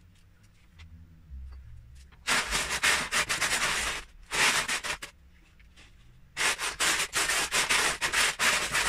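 A hand rummaging through a plastic tub of loose Lego bricks, the pieces clattering and rattling against each other. It comes in three spells: from about two seconds in, briefly around four and a half seconds, and again from about six and a half seconds on.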